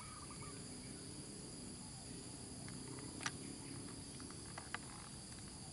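Steady insect chorus, a continuous high shrill drone, with a few sharp clicks, the loudest about three seconds in and two fainter ones near the end.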